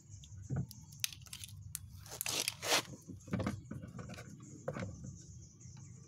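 Handling noise from an analog multimeter and its test leads being moved over a washing machine's wiring: scattered light clicks and a brief rustle a little over two seconds in.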